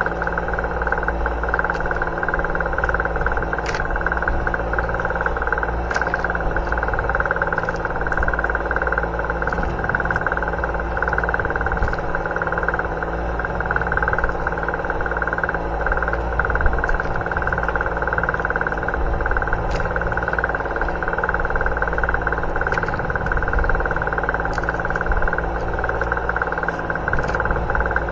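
A boat engine running steadily at low revs, an even drone with a few faint clicks here and there.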